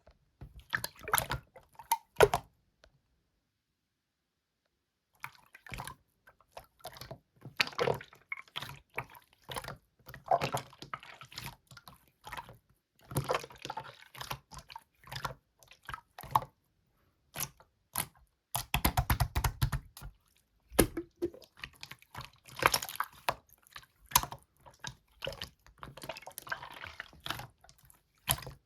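Hands playing with slime: wet, sticky squishing with clicky pops and crackles in irregular bursts, including a quick run of rapid pops about two-thirds of the way through.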